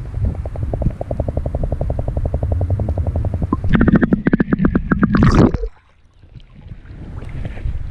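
Muffled, rhythmic pulsing of churning water picked up by a microphone held underwater in a tubewell's water tank, about a dozen beats a second. It grows louder and harsher about four seconds in, then cuts off sharply as the camera comes out of the water, leaving only faint outdoor sound.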